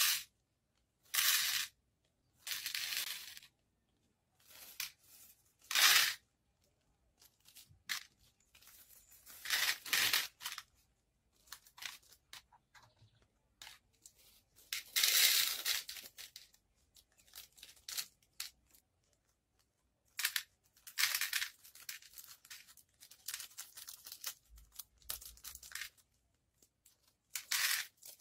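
Small plastic bags of acrylic beads being torn open and crinkled, and the beads poured and rattled into a clear plastic organizer box. It comes in about a dozen short bursts, with small clicks of beads in between.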